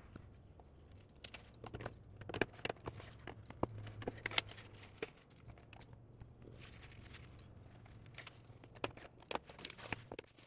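Scattered light clicks and taps of hands working a wood-glue squeeze bottle and seating small metal fittings into slots in a wooden rail, over a low steady hum.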